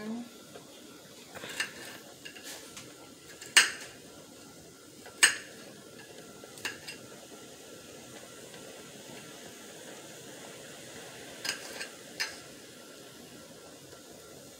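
Kitchen utensils clinking and knocking against a pot or dishes while seasonings are added to a sauce: about seven sharp, separate knocks, the loudest two about three and a half and five seconds in, and a quick cluster of three near the end.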